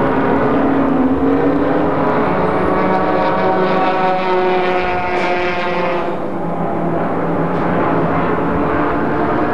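Racing sedans' engines running at full throttle around the circuit. One engine note climbs steadily in pitch for about five seconds as a car accelerates past, then falls away about six seconds in, over the continuous drone of the other cars.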